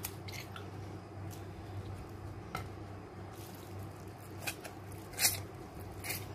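Hands packing a wet rice stuffing into hollowed-out eggplant and zucchini: irregular soft squelches and small clicks, the strongest about five seconds in, over a faint steady low hum.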